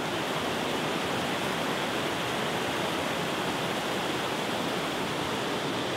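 Fast-flowing river rushing steadily, an even wash of water noise with no breaks.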